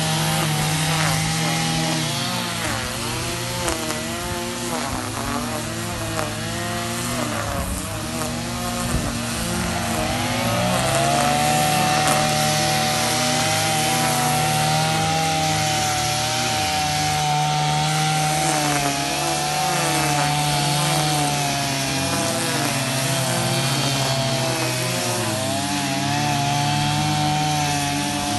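Several petrol brush cutters (string trimmers) running at once, their engine notes overlapping and wavering as they are throttled up and down. About ten seconds in, one climbs in pitch and then holds steady at high revs.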